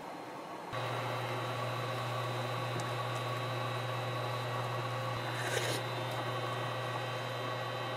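Dumplings boiling in a pot of broth on a Samsung induction cooktop: water bubbling over the cooktop's steady electrical hum, starting about a second in, with a brief hiss about five and a half seconds in.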